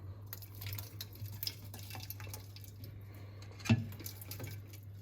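Old black gear oil draining and dripping out of a Holden Commodore differential with its rear cover off. There is a single knock about three and a half seconds in, over a steady low hum.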